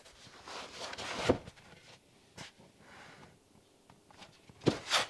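Cardboard shoebox being handled and opened: the lid scrapes along the box and ends in a thud about a second in, then a light tap. Near the end come more scraping and a couple of sharp knocks as the lid comes off.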